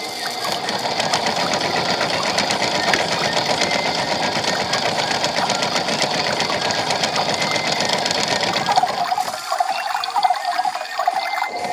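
Toy washing machine's small electric motor running, a steady buzzing whir with a fast rattle. About nine seconds in, the deeper part of the sound drops away for a couple of seconds, then comes back.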